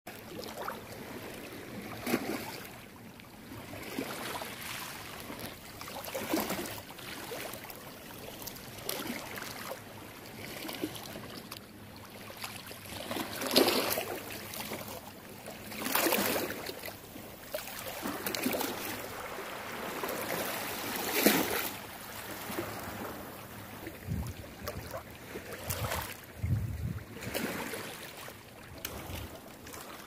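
Shallow water lapping and splashing over a pebble shore, with irregular louder splashes every few seconds as bare feet wade through. A few low thumps near the end.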